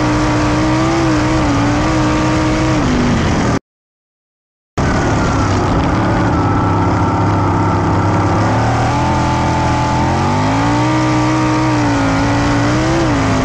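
410 sprint car's V8 engine at racing speed, heard on board, its pitch rising and falling as the throttle is worked through the turns. The sound cuts out completely for about a second a few seconds in, then comes back lower and climbs again.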